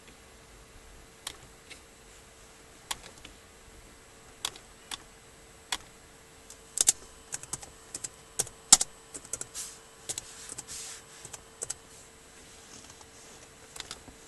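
Laptop keyboard keystrokes and clicks: scattered single clicks at first, then a quicker irregular run of keystrokes about seven to twelve seconds in.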